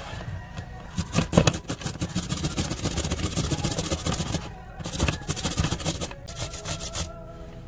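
English cucumber being rubbed up and down a flat handheld metal grater into a plastic tub: quick, repeated rasping strokes, with a short pause about four and a half seconds in, stopping shortly before the end.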